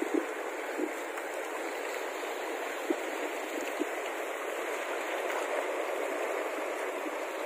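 Steady rushing of sea water washing along the shore, with a few faint ticks.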